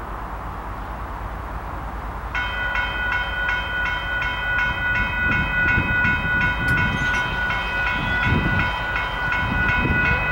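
Railroad grade-crossing bell starts ringing about two seconds in, a rapid, steady dinging of about three strikes a second, as the crossing activates and its gate arm lowers for an approaching train.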